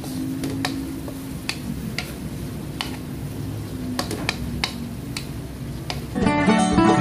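Wooden spoon knocking against a stainless steel pan while stirring vegetables: irregular light taps, roughly one to two a second, over a low steady hum. Acoustic guitar music comes in near the end.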